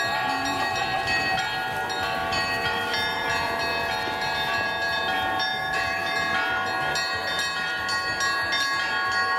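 Music of long held, overlapping chords over a steady low beat, with the notes changing every second or two.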